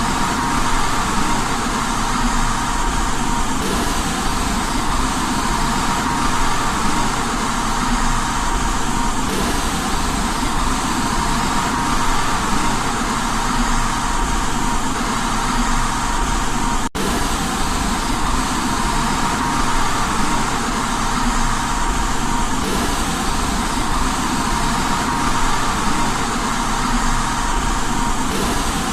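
Steady white noise for baby sleep, an even hiss across all pitches with a faint steady tone running through it. It drops out for an instant about halfway through.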